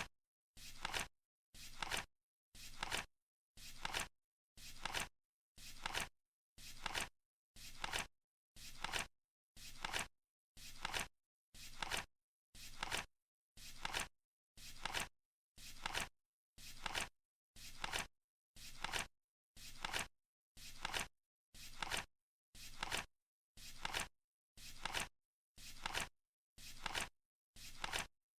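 Flip clock counting down, its seconds flap flipping over once a second: an even series of identical short flap clicks.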